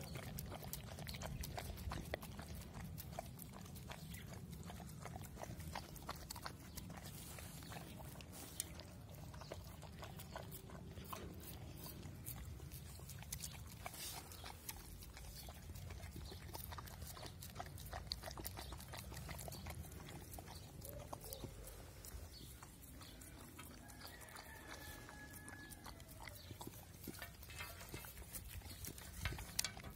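Puppies lapping milk and chewing dry kibble from a metal tin: a run of quick wet licks and small crunching clicks.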